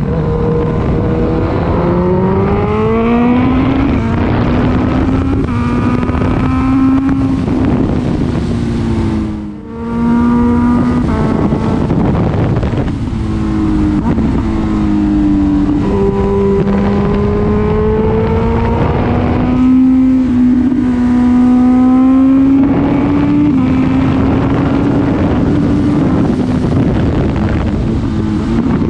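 Honda CB1000R's inline-four engine accelerating through the gears: the pitch climbs, then steps down at each upshift, again and again. About nine and a half seconds in it briefly goes quiet as the throttle closes, then climbs again.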